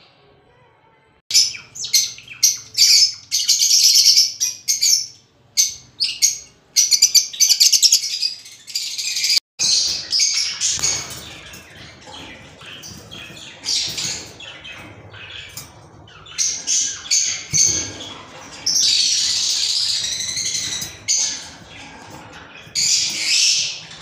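Lovebirds chattering in a cage: fast runs of shrill, high chirps and squawks that start about a second in and keep coming in bursts, with a brief break about ten seconds in.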